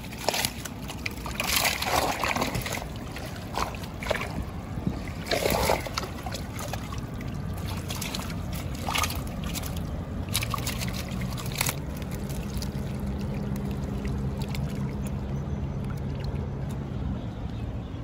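A fish thrashing in a mesh landing net in shallow water: irregular splashes and sloshing in short bursts with quieter stretches between. A low steady hum comes in around the middle and continues.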